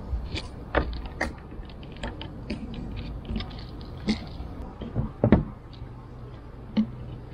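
Irregular clicks and knocks from needle-nose pliers releasing plastic wire-harness clips and from the harness being handled against the outboard's engine block. The loudest knocks come about five seconds in and again near the end.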